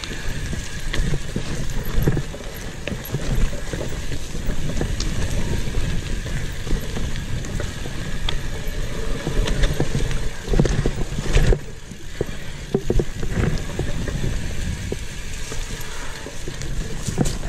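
Commencal Meta AM 29 mountain bike riding down a dirt forest trail: tyres rumbling over the ground, with frequent sharp knocks and rattles from the bike over bumps and roots. The noise eases briefly about two-thirds of the way through.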